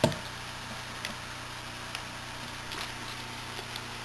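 A single dull knock as a small plastic reagent bottle is handled on a wooden tabletop, followed by a few faint light clicks over a steady low hum.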